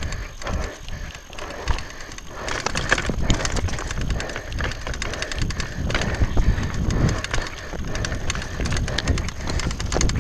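Mountain bike descending a rocky singletrack: tyres crunching over loose stones and the bike's chain and frame rattling in quick, irregular clatters, over wind noise on the camera microphone. It gets louder and busier from about two and a half seconds in as the trail turns to loose rock.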